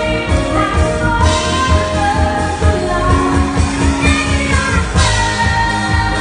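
A woman singing a pop song live into a microphone, backed by a band with a drum kit keeping a steady beat.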